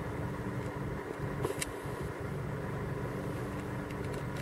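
Safari vehicle's engine idling steadily, a low rumble with a constant hum. A light click about one and a half seconds in.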